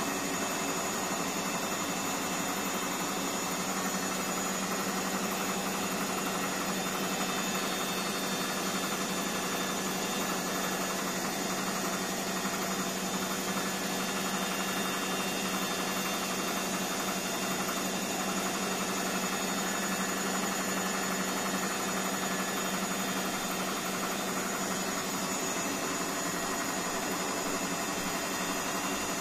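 Indesit BWSE 61051 front-loading washing machine spinning at a steady high speed, with a constant motor hum and whine. The drum bearings are freshly replaced.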